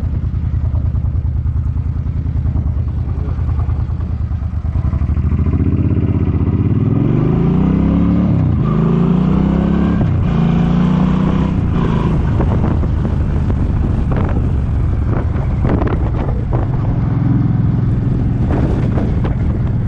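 Suzuki Boulevard M50's V-twin engine running low and steady, then accelerating, rising in pitch and dropping at two gear shifts around the middle, then settling into a steady cruise. Gusty wind buffets the microphone over the engine.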